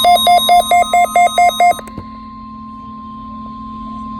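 Rapid electronic beeping: about nine short beeps of one pitch in under two seconds, stopping about two seconds in. A steady low hum with a faint high steady tone follows.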